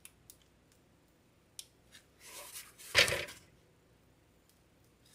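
Spackle being squeezed out of a plastic piping bag through a 1M star tip to pipe a border: a few short rustling squeezes, the loudest about three seconds in, with faint ticks between them.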